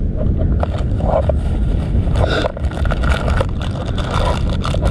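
Steady low rumble of wind buffeting the microphone of a camera in a waterproof case, with scattered clicks and rubbing from handling.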